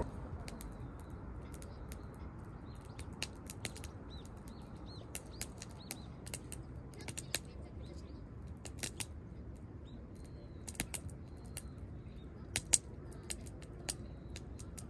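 Wood fire crackling in a fire pit, giving irregular sharp pops and snaps, one much louder than the rest late on. Faint high bird chirps sound over a low steady rumble.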